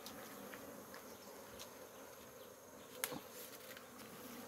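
Faint, steady hum of honeybees over an open hive as its frames are handled, with a brief click about three seconds in.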